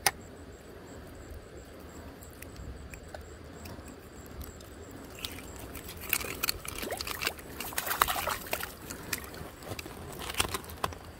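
Running water, with a stretch of irregular splashing and clicking in the second half.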